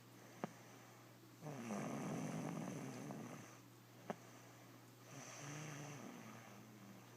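A little girl snoring in her sleep: a loud snoring breath about a second and a half in, then a softer one about five seconds in. Two sharp clicks come in between, one just under half a second in and one about four seconds in.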